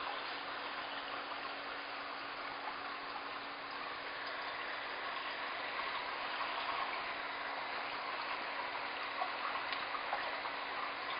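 Steady running, trickling water of aquarium tanks' filtration and circulation, with a faint steady hum underneath.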